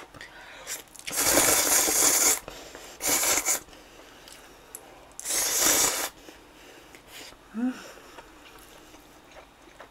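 A person slurping thick instant ramen noodles three times: one long slurp about a second in, then two shorter ones, followed by quieter chewing.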